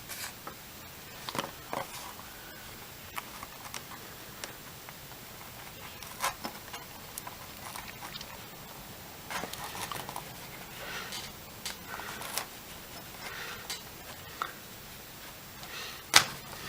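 Scattered small clicks and short scrapes of wire strippers working on the battery lead wires, stripping the insulation from their cut ends, with one sharp click near the end.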